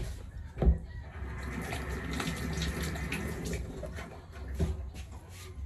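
Water running from a faucet into a steel sink for about three seconds, starting about a second in. It is preceded by a sharp thump, the loudest sound, and followed by a smaller knock.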